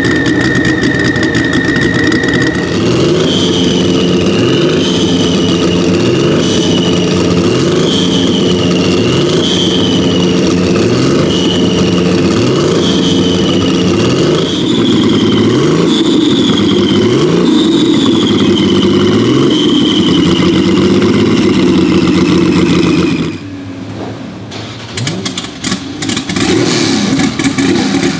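Porsche 935 K3's turbocharged flat-six race engine running loud, its revs rising again and again about every second and a half. A high steady whine sounds over it at the start. The sound drops sharply about 23 seconds in and picks up again near the end.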